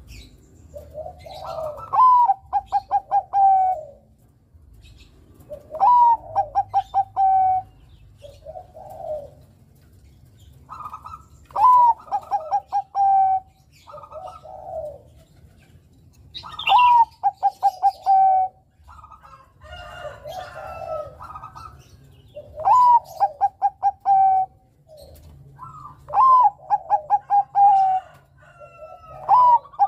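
Zebra dove (Bangkok perkutut) singing its cooing song over and over, a phrase every four to five seconds. Each phrase is a swooping opening coo, a quick run of short stuttered coos and a long held final note, with softer coos in the gaps.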